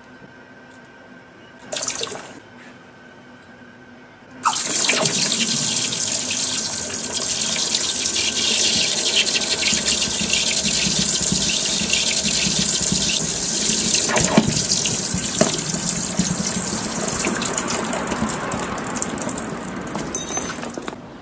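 Glowing molten material poured from a crucible into pool water, setting off a loud, steady sizzling hiss as the water flashes to steam around the stream. A brief sizzle comes about two seconds in. The main hiss starts about four and a half seconds in, with a few crackles, and stops near the end as the pour thins to a dribble.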